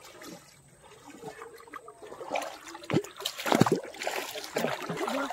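Shallow river water splashing and trickling around a hand-hauled shrimp drag net, quiet at first and then louder, irregular splashes from about two seconds in.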